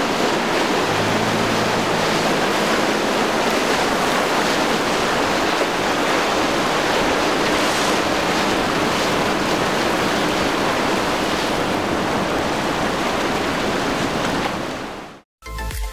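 Waves and churning water with wind on the microphone, a loud steady rush. A low engine hum shows faintly for a couple of seconds about a second in. The rush fades out near the end and music starts.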